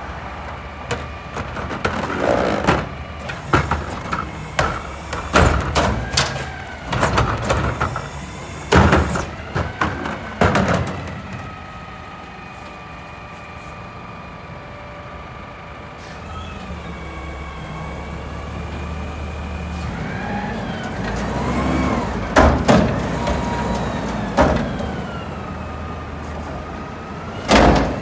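Mack LEU front-load garbage truck with a McNeilus carry can: first a run of loud clanks and bangs as carts are tipped and knocked empty into the carry can. Then the engine revs and the hydraulics whine, rising and falling, as the front arms lift the carry can up over the cab, with more heavy bangs as it dumps and shakes out.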